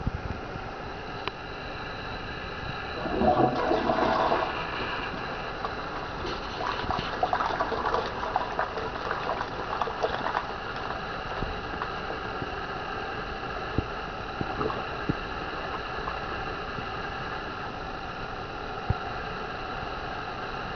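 TOTO toilet's tornado flush: water rushes into the bowl with a loud surge about three seconds in, then swirls and gurgles down the drain. After about ten seconds it settles into a steady hiss of running water.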